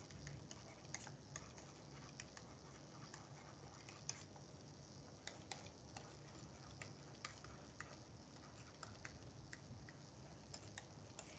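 Faint, irregular light ticks of a stylus tapping and stroking on a pen tablet as words are handwritten, over quiet room tone.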